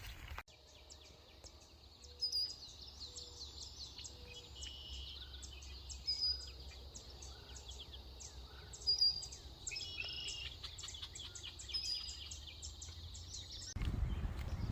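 Birds chirping in short, high notes over a faint background, with many quick high ticks among the calls. Near the end the background changes to a louder low rumble.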